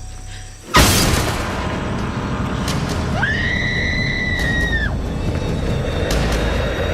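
Horror film soundtrack: a sudden loud boom about a second in, then a dense rumbling score with a high held shriek lasting about a second and a half near the middle.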